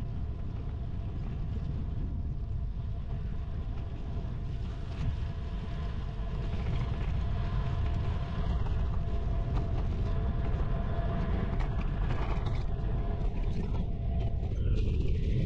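Wind rushing over the microphone of a moving bicycle, mixed with road noise: a dense low rumble that gets louder about six seconds in.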